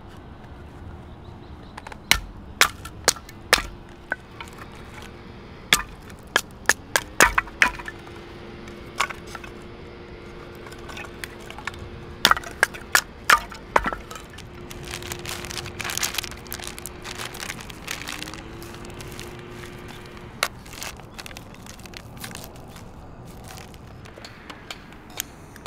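Wood being split and broken by hand: sharp cracks and knocks in irregular clusters, with a patch of crackling in between.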